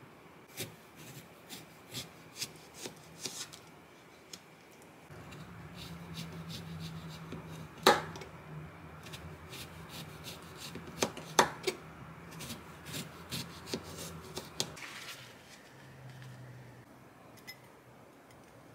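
A kitchen knife slicing a lemon into rounds on a plastic cutting board: a series of sharp cuts and taps of the blade on the board, the two loudest about 8 and 11 seconds in. A low steady hum runs behind the middle of it.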